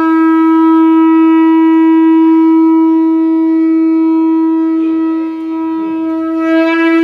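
Conch shell (shankh) blown in one long, loud, steady note, rich in overtones, held for about seven seconds.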